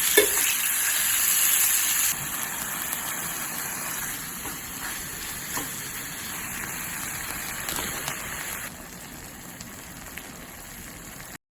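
Food sizzling in a skillet, a steady hiss with a few light clicks. It drops in level twice, about two seconds in and again near nine seconds, then cuts off abruptly just before the end.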